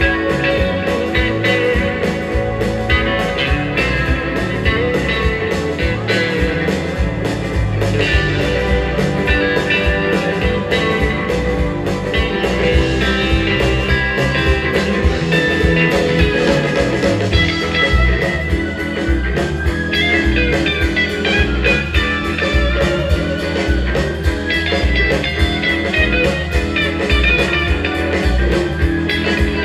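Live instrumental rautalanka band playing: an electric guitar lead melody over Casio keyboard, bass and a steady drum beat.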